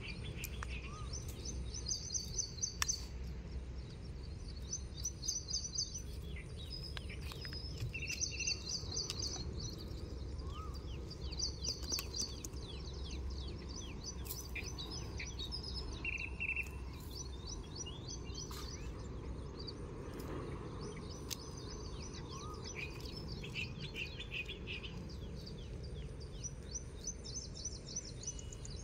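Small birds singing: short, high chirping phrases repeated every second or two, over a steady low rumble.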